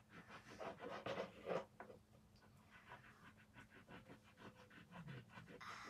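A coin scratching across a scratch-off sticker in quick, repeated strokes, louder for the first couple of seconds and fainter after.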